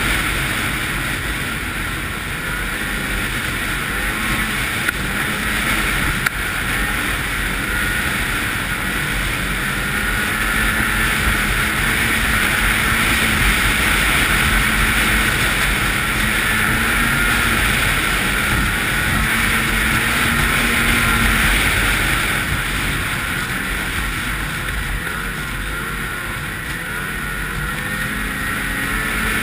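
Ski-Doo MXZ 800 snowmobile's two-stroke twin engine running steadily at trail-cruising speed, its note rising and falling a little with the throttle, with wind rushing over the microphone.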